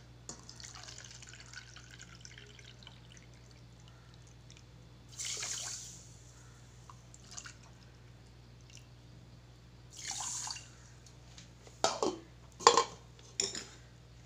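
Water poured from a steel vessel into a plastic measuring cup over a saucepan of sugar, in two splashing pours about five and ten seconds in. A few sharp knocks follow near the end.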